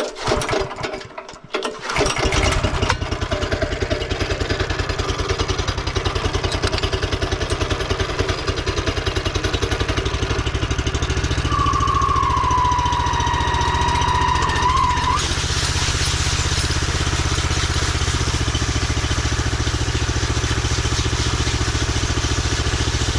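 Concrete power trowel's gasoline engine catching about two seconds in, then running steadily as the machine floats the first pass on a fresh slab. A high whistling tone rises over it for about three seconds, around twelve seconds in.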